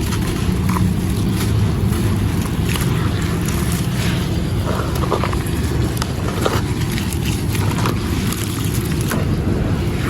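Gritty brown stone and sand-cement lumps being crumbled in water: a continuous low gritty crunching with scattered small crackles and ticks.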